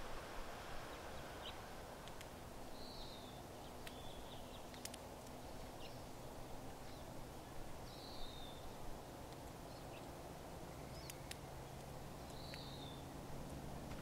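Small finches at tube seed feeders: a short chirp repeated about four times, a few seconds apart, with scattered faint sharp ticks of sunflower seeds being cracked.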